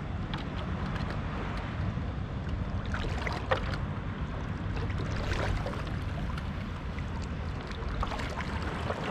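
Shallow sea water splashing and sloshing around a person's legs as they wade, with a few sharper splashes, over a steady low rumble.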